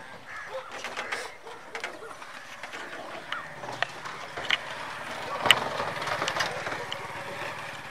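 Scuffs, steps and handling knocks as a camera is carried around a tractor, with one sharp click about five and a half seconds in. From about three and a half seconds in, a low steady engine hum with an even pulse runs underneath.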